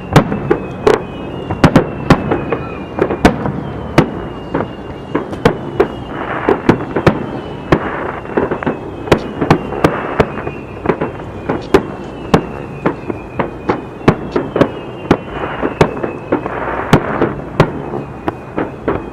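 Aerial fireworks display: a dense, rapid run of shell bursts and bangs, with stretches of crackling. Through it, repeated high whistles glide slightly downward.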